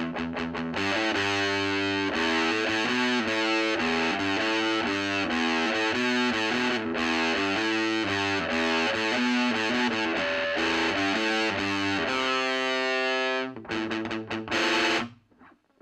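Electric guitar through the overdrive channel of an Ever Play RG60 solid-state 2x12 combo amp, playing a distorted riff of quick single notes. Near the end comes a held chord and a few short stabbed chords, then the playing stops suddenly.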